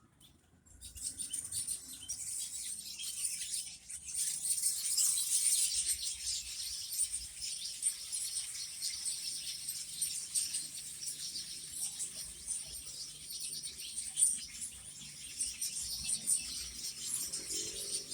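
A flock of small birds chirping and twittering together in a dense, continuous chorus of rapid high notes, starting about a second in.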